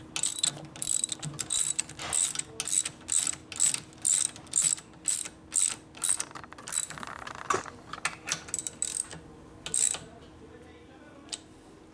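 Hand ratchet wrench clicking in quick, even strokes, about two a second, as it runs a bolt in. The strokes turn irregular after about seven seconds and stop about two seconds before the end.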